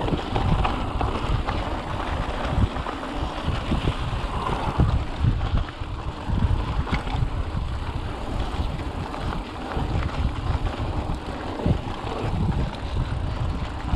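Mountain bike rolling fast along a dirt singletrack: wind on the microphone over the rumble of knobby tyres on dirt, with irregular bumps and rattles from the bike over rough ground.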